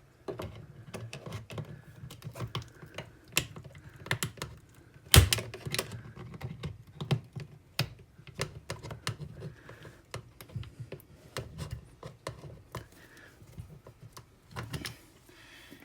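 Irregular clicks, taps and scrapes of hand tools, a screwdriver and grips, working on the screws and clamps of a dishwasher motor, with one loud knock about five seconds in.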